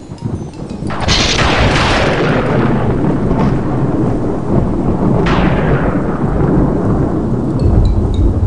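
Two thunderclaps, about a second in and again about five seconds in, each a sudden crack that trails off into a long rumble, over steady rain.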